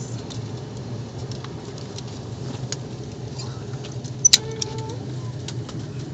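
Steady low hum with scattered light clicks and rattles. Two sharp, loud clicks come about four seconds in, followed by a brief low hooting tone.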